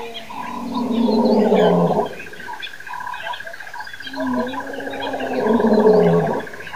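African lion roaring: two long, deep roars, each sliding down in pitch at its end.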